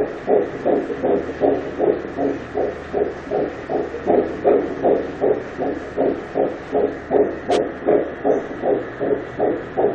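Ultrasound Doppler sound of a seven-week embryo's heartbeat, one of twins: a fast, even whooshing pulse at about 156 beats a minute.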